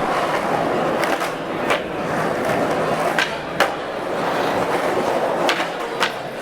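Skateboard rolling, its wheels making a steady rumble on the ground, with about six sharp clacks from the board along the way, the loudest about three and a half seconds in.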